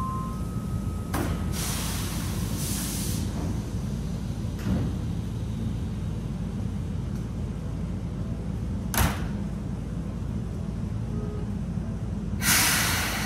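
Seibu 2000-series electric train standing at the platform as its doors close: a steady low rumble with pneumatic door hisses and sharp clunks, then a loud hiss of released air near the end.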